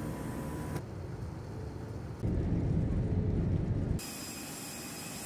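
Steady vehicle noise in several short clips cut together, with a louder, deeper stretch of noise in the middle.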